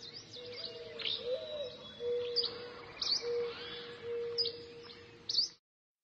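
Birds chirping and calling in short, sharp repeated chirps over a steady low tone; the sound stops abruptly near the end.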